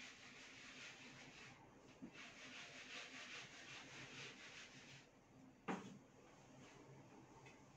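Faint rubbing of a felt duster wiping marker off a whiteboard in quick back-and-forth strokes, pausing briefly about one and a half seconds in and stopping around five seconds. A single sharp knock follows shortly after.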